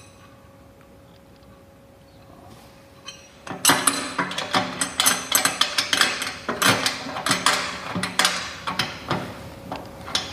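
Steel bracket and hardware clinking and clattering against the sheet-metal housing of a motorized bike lift's motor unit as the strut joiner piece is fitted to it. The quick, irregular metallic clicks start about three and a half seconds in, after a faint steady hum.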